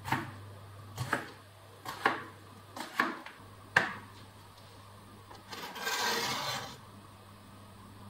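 Chef's knife chopping vegetables on a cutting board: five sharp knocks about a second apart, then a longer scraping rustle lasting about a second.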